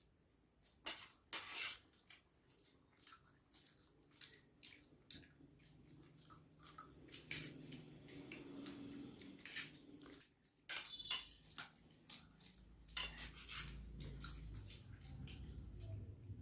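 Eating utensil clinking and scraping against a plate while someone eats, in a run of irregular sharp clicks. A low hum comes in past the middle.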